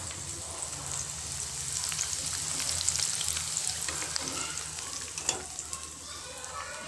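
Slit green chillies deep-frying in hot oil in a kadai, sizzling and crackling as they are stirred with a steel slotted spoon, fried until crisp and golden. A sharp tap about five seconds in.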